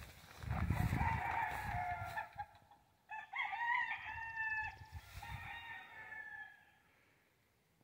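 A rooster crowing, three long calls, the loudest about three seconds in and the last one fainter. Low rumbling sits under the first call.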